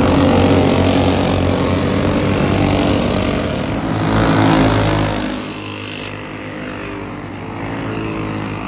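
Engines of caged dirt-track racing karts running hard as the pack passes close by, then falling away about five seconds in as the karts move off around the track.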